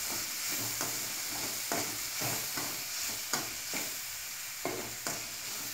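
Metal spatula stirring and scraping through vegetables in a metal kadai, about twice a second, over a steady sizzle of oil. Adamant creeper (pirandai), tomatoes, small onions and dried red chillies are being sautéed for a thuvayal (chutney) before grinding.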